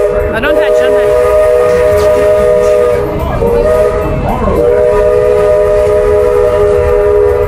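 Steam locomotive's whistle blowing long blasts, a steady chord of several notes sounding together, with a short break in the middle.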